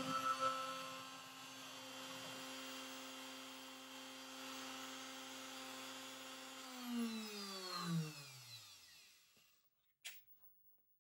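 CNC spindle with a surfacing bit running at a steady whine, then switched off about two-thirds in, its pitch falling as it spins down to a stop. A single click follows near the end.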